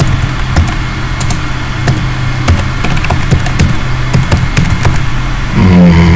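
Computer keyboard keys clicking in an irregular stream of keystrokes as a long string is typed, over a steady low hum.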